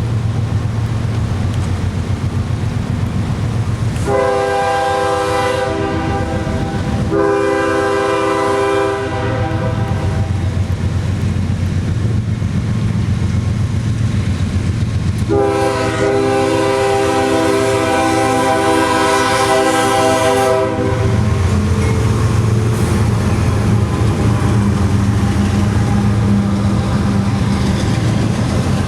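CSX freight train's diesel locomotives rumbling steadily past, with wheels clacking over the rails. The locomotive air horn blows two long blasts about four seconds in, then one longer blast after a pause of several seconds.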